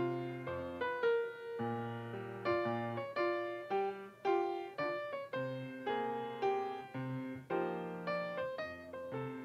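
Piano music with melody notes and chords struck at a moderate pace, each note dying away after it is struck.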